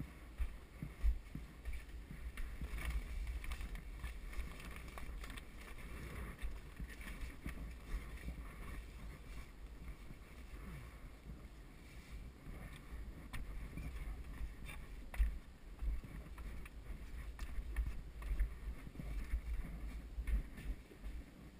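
Footsteps and scattered knocks on wooden steps, with a low, uneven rumble of handling noise from a handheld camera being carried.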